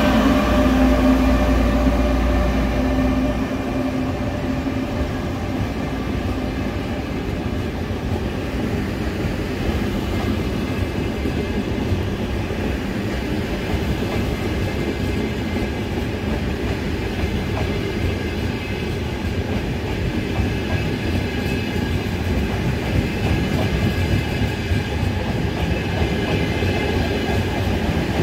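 An ETR 500 Frecciarossa high-speed train rolls slowly past. The power car gives a deep hum and a steady whine that stop about three and a half seconds in. After that the passenger cars' wheels keep up a steady rumble with light clacking over the rail joints.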